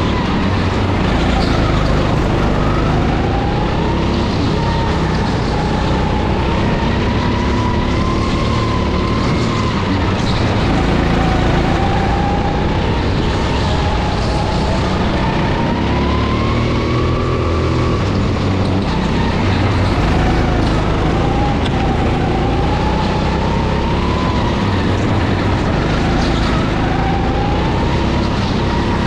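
9-horsepower go-kart engine running at race pace, its pitch climbing and then dropping again every few seconds as the kart laps the track.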